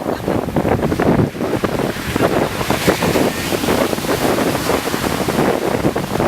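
Wind buffeting the microphone over the wash of ocean water: a loud, choppy rushing noise that keeps up without a break.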